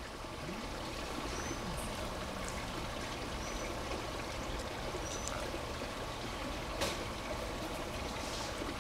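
Steady rushing noise like running water or wind, with a few short high chirps in the first five seconds and a single sharp click about seven seconds in.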